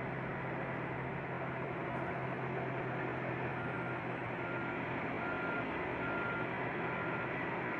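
Heavy mining machinery's diesel engines running steadily, with a low hum under a broad rumble. About halfway through, a reversing alarm starts beeping, one short beep about every three-quarters of a second.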